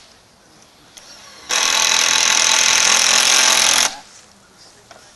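Power drill running in one steady burst of about two and a half seconds, starting about a second and a half in.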